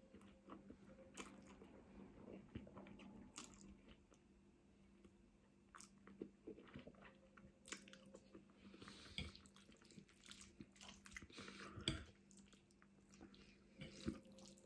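Faint close-up eating sounds of spaghetti bolognese: a forkful of spaghetti sucked in near the start, then chewing with soft wet mouth sounds and small clicks.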